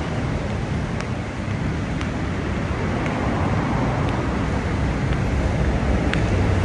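Steady road traffic noise from a busy multi-lane highway, with faint light clicks about once a second.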